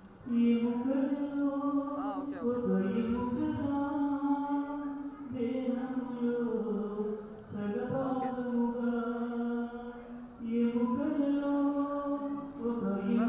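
A voice singing a slow Telugu Christian wedding song in long held notes that step from pitch to pitch, with brief breaths between phrases every few seconds.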